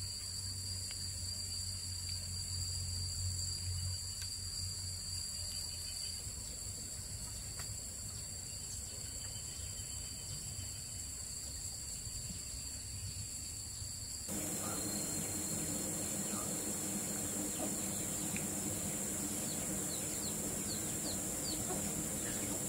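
Outdoor ambience of insects calling, steady high-pitched drones that never let up. About two-thirds of the way through the background changes abruptly and grows fuller, with a few short chirps near the end.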